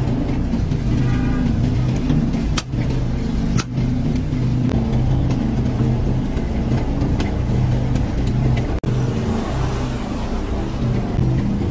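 Steady low motor hum, even in pitch, broken by three brief drop-outs.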